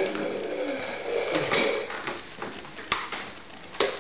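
Footsteps and sharp knocks on a hardwood floor, two of them about a second apart near the end.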